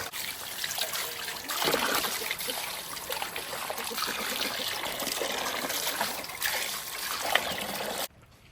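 Water trickling and splashing unevenly, cutting off suddenly near the end.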